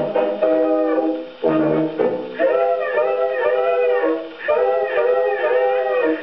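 A 1920s dance-band 78 rpm record playing on a large-horn acoustic gramophone. The band dips briefly just over a second in, then a wavering melody line swells over it twice.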